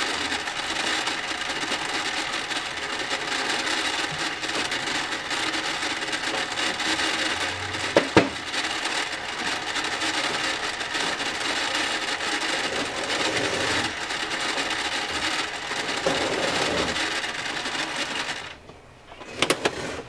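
Toy microwave oven running, a steady whirring hum from its turntable motor and sound effect, with a sharp click about eight seconds in. The whirring stops about a second and a half before the end, then a couple of sharp clicks follow as the door is opened.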